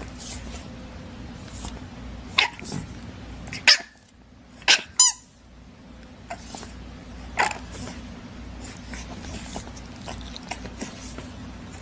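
English bulldog puppies giving a handful of short yips and barks, the loudest clustered a few seconds in, one falling in pitch. A steady low hum runs underneath.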